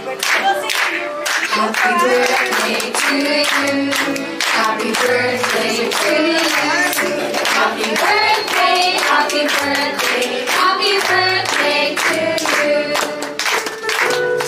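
A group of people singing a birthday song together, clapping along in a steady beat.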